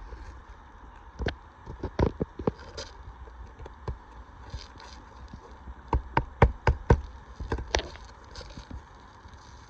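Hammer driving roofing nails into asphalt shingles: a few scattered strikes, then a quick run of about six blows about six seconds in, and two or three more just after.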